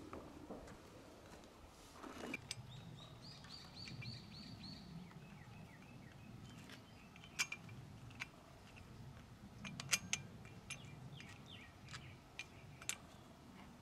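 Small birds chirping: a run of about eight quick, high notes, then scattered shorter calls. Several sharp clicks cut in, the loudest near ten seconds in.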